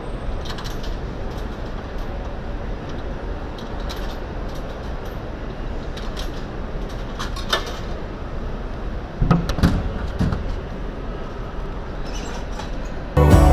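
Drinks vending machine in use: scattered light clicks as its buttons are pressed over a steady low car-park hum, then a few heavier thuds about nine seconds in as a drink drops into the delivery tray.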